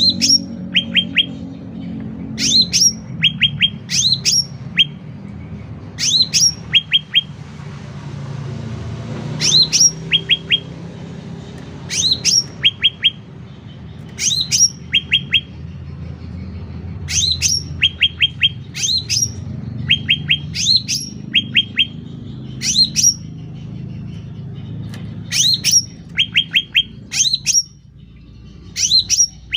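A cucak ranting singing loudly and persistently, in the full-song state that bird keepers call gacor. It repeats a short phrase every second or two: a sharp, high, falling note followed by a quick run of three or four short chirps. A low rumble runs underneath.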